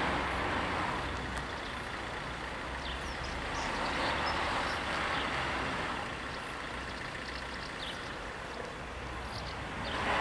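Road vehicles passing: engine and tyre noise swelling and fading, loudest about four seconds in and again near the end.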